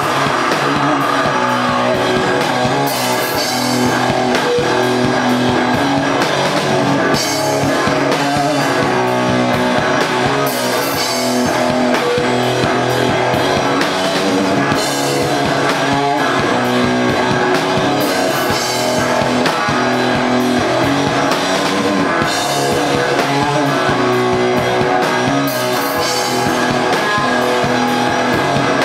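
Rock band playing live: guitars over a drum kit, with cymbal crashes every few seconds.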